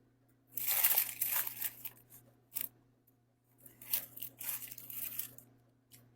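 Paper food packaging being handled: crinkling and tearing in two rustling spells, the first about half a second in and the second around four seconds in, with a short sharp click between them. A faint steady hum sits underneath.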